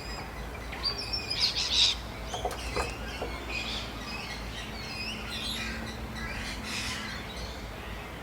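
Dawn chorus of many birds chirping and whistling over one another, loudest about a second or two in. Beneath it runs a steady low rumble and hum from light construction work some way off.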